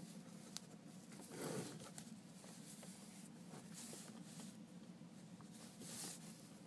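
Faint handling sounds from a 1/50 scale model excavator's upper structure being turned through a full circle by hand: a small click about half a second in, then soft rubbing and rustling.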